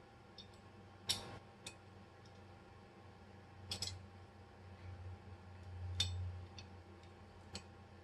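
Steel parts of a 1911 pistol clicking and clinking as the hammer is fitted into the frame during reassembly: about six separate sharp metallic clicks, the loudest about a second in and around six seconds in.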